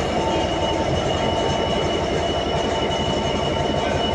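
Class 66 diesel-electric locomotive's two-stroke V12 engine running steadily as it pulls along the platform, with a low pulsing beat and a thin steady whine above it.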